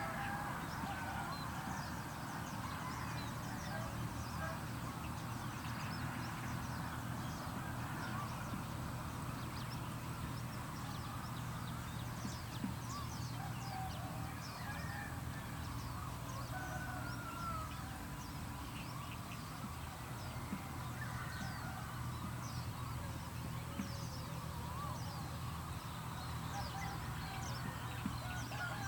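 Rural field ambience: domestic fowl calling on and off, with many short high chirps and a steady low hum underneath.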